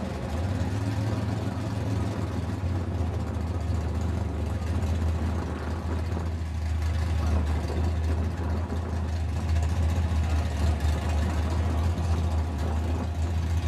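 Modified 1964 AMC Rambler drag car's engine idling with a steady low note while it waits at the starting line before a quarter-mile run.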